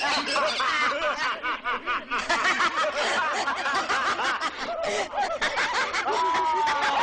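Many voices cackling with laughter at once in a dense, rapid chorus of 'ha-ha' bursts: the possessed cabin's laughing deer head and furnishings.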